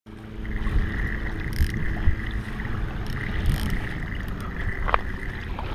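Boat motor running steadily, a low rumble with a faint whine above it, mixed with wind noise on the microphone.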